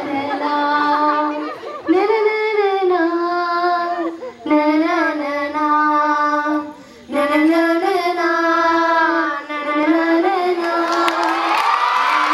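A single female voice singing a slow melody in held phrases of about two seconds, sliding between notes, with short breaks between phrases. Near the end, audience clapping and cheering rise under the singing.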